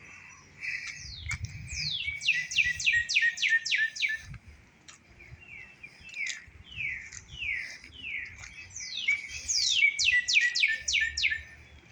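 A songbird singing from the trees: a quick run of steeply falling whistled notes about two seconds in, softer slurred notes after it, then a second quick run of falling notes near the end.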